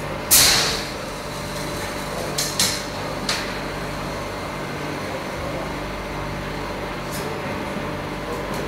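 A steady mechanical hum, broken a moment in by a sharp hiss of released air that fades over about half a second, followed by a few light clicks around two and a half to three and a half seconds in.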